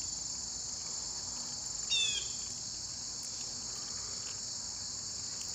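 Steady high-pitched insect chorus, crickets or similar, with one short falling chirp about two seconds in.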